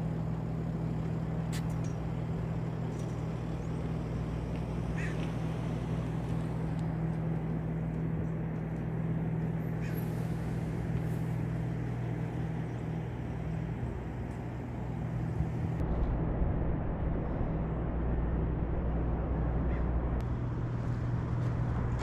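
Wind buffeting the microphone: a steady low rumble, with a few faint, brief higher sounds in the first half.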